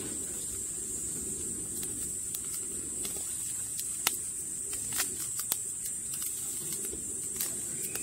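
Beef sirloin steaks sizzling on a wire-mesh grill over charcoal: a steady hiss dotted with scattered sharp pops and crackles, the loudest about four seconds in.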